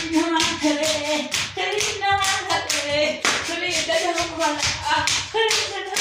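Voices singing with quick, steady hand-clapping keeping the beat.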